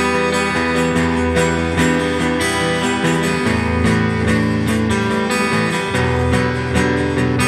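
Stoner rock band playing, with guitar ringing over sustained low notes at a steady, loud level.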